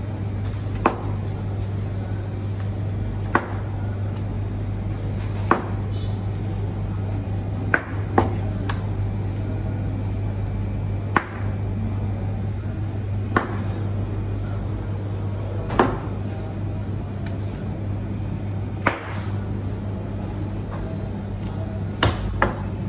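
Knife slicing a block of raw beef into thin slices on a plastic cutting board, the blade knocking sharply on the board each time it cuts through a slice, about every two to three seconds. A steady low hum runs underneath.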